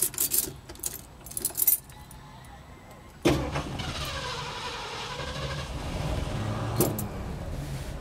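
Keys jangling at the ignition, then about three seconds in the 1974 Mercury Montego's 351 Cleveland V8 starts and settles into a steady idle, with a sharp click near the end.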